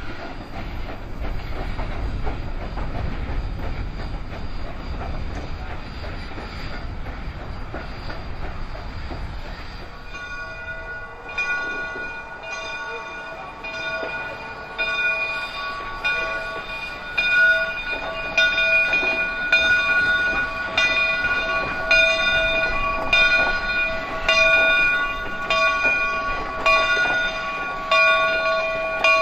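Steam locomotive rolling slowly past with a low rumble. About ten seconds in, its bell starts ringing, one strike a little more than once a second, getting louder.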